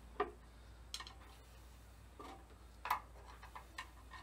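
Metal hand tool clinking and tapping against a John Deere tractor's engine parts during a water pump replacement: about five short, irregular clinks, the sharpest about three seconds in.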